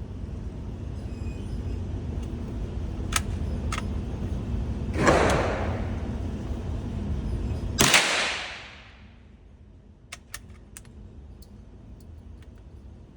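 .22 LR single-shot bolt-action rifle firing two shots about three seconds apart, the second a sharp crack with a short ringing tail. A few light clicks follow.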